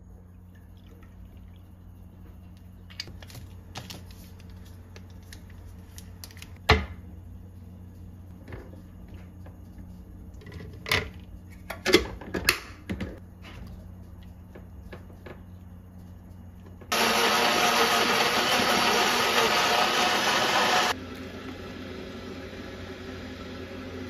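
Kitchen handling noise, with several sharp knocks and clinks, the strongest about a third of the way in. Then a countertop blender runs loudly for about four seconds, blending banana and berries into a smoothie, and stops abruptly. A quieter steady hiss follows.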